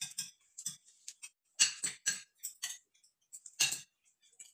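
Forks and spoons clinking and scraping on dinner plates while people eat: short, irregular clicks and taps, the loudest about three and a half seconds in.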